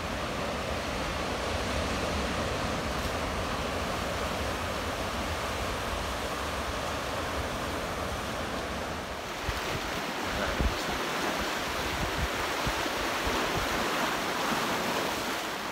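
Ocean surf washing over a rocky shore, a steady rush of waves, with wind rumbling on the microphone.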